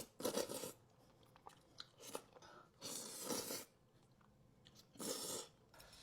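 Close-up crunching bites and chewing of crispy fried food, in four separate bursts with short pauses between them.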